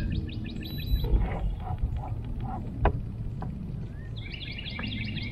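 A bird sings a fast, evenly repeated chirping trill, starting about four seconds in, over a low steady outdoor rumble. A few soft knocks are heard, and a sharp one about three seconds in is the loudest moment.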